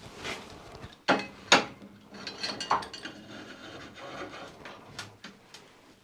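Metal clinks and light scraping from hard objects being handled and rubbed on a workbench, with two sharper knocks about a second and a half in.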